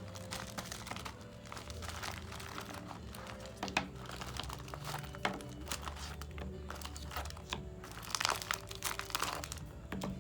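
Plastic packaging crinkling and rustling in irregular clicks and crackles as a shaker pouch is opened and handled, over soft background music.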